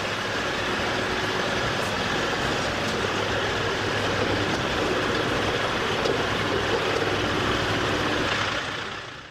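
Heavy machinery running steadily, an even mechanical noise that fades out near the end.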